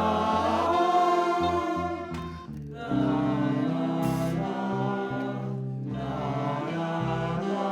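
Song playing, with sung voices over a steady bass line.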